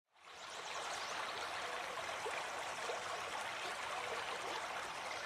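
Flowing stream babbling, a steady rush of water with small gurgles through it, fading in just after the start and fading out near the end.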